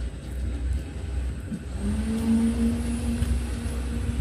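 A motor running: a steady low rumble, joined about two seconds in by a humming tone that glides up briefly and then holds steady.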